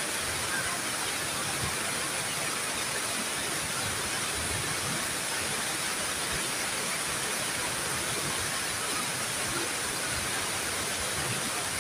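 Flash floodwater from heavy rain rushing down a street in a steady, unbroken torrent.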